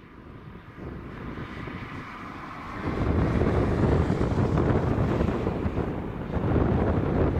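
Boeing 747-400 freighter on landing approach, its four jet engines whining and getting louder as it nears. About three seconds in, a loud low rumble sets in and holds.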